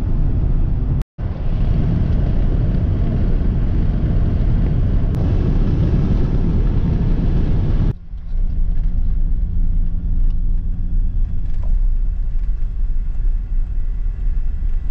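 Car cabin noise while driving: road and tyre rumble on a paved highway, cut out briefly about a second in. About eight seconds in it changes to quieter running on a gravel road, with a steady engine hum and faint ticks.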